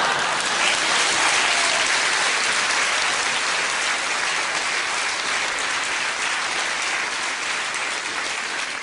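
Large theatre audience applauding, a dense, steady clapping that eases off slightly toward the end.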